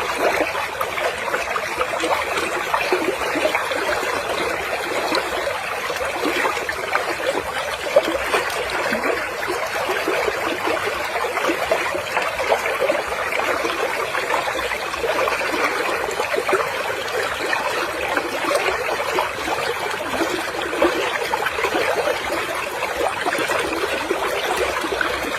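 Running water flowing and splashing steadily, like a stream over rocks.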